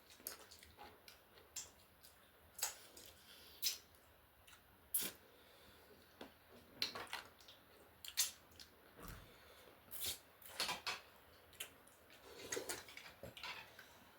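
Close-miked eating sounds from a mukbang meal of noodle soup and chicken wings: irregular sharp mouth clicks and smacks, with a few short wetter slurping or chewing stretches.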